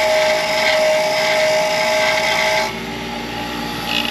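Bench grinder running, its wire wheel brushing the commutator of an ATV starter armature to clean off carbon and arc-burn spots. About two and a half seconds in the sound drops to a quieter steady running hum.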